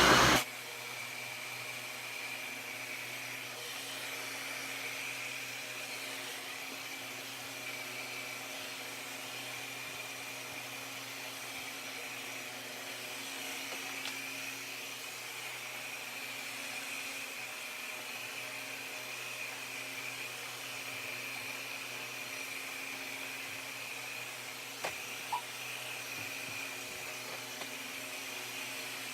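Heat gun running steadily, its fan giving a rush of air with a thin high whine. Near the end come two short clicks.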